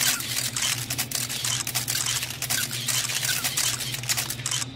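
Rapid, irregular clicking of a camera shutter, many clicks a second, over a low steady hum.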